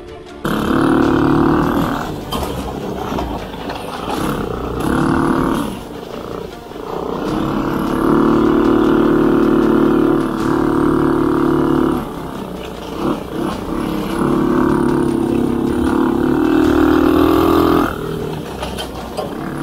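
Small engine of a homemade motorized snowbike under way, rising to a loud, steady pitch in several long pulls of the throttle and dropping back between them.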